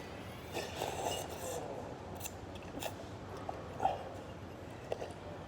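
Eatery ambience: a murmur of distant voices with a few sharp clicks and clinks of tableware.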